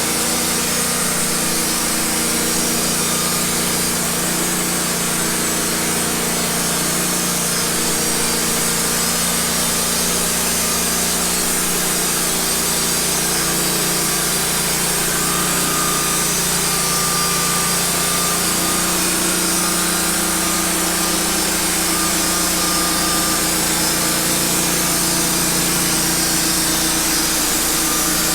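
Wood-Mizer LT15 band sawmill running steadily, its band blade sawing through a log.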